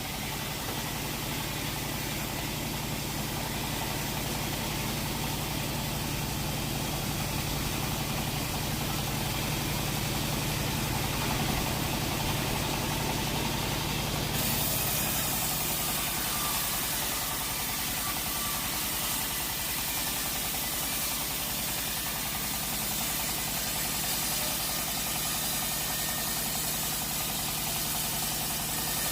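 Sawmill machinery engine running steadily with an even pulse. About halfway through, a high hiss stops and the low hum shifts to a lower, different note.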